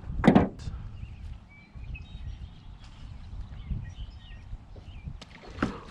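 Faint birds chirping over a low outdoor rumble of wind. A brief loud burst of sound comes just after the start, and a shorter one near the end.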